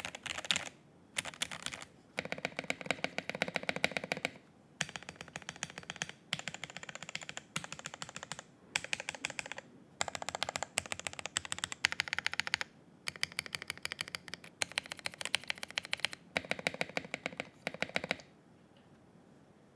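Fast typing on an ikki68 Aurora mechanical keyboard with lubed switches and stabilisers and CRP keycaps: rapid keystroke clacks in bursts of a second or two separated by short pauses, stopping about 18 seconds in.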